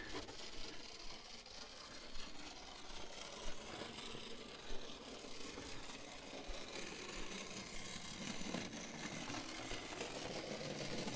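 Hornby clockwork Thomas the Tank Engine's wind-up spring motor whirring steadily as the little engine runs along the track, its spring nearly run down.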